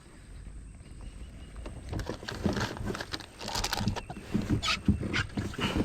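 Kayak on the water: irregular splashes and light knocks against the hull, starting to build about two seconds in.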